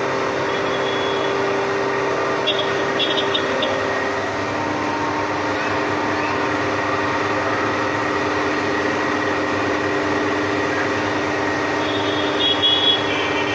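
A motor running steadily, its hum stepping down in pitch about four seconds in, with two brief clusters of high chirps, one early and one near the end.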